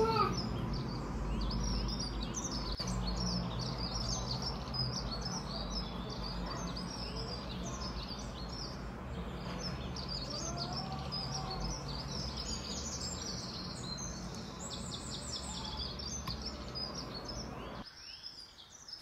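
Many small birds chirping and twittering in quick short calls over a steady low hum; it all drops away near the end.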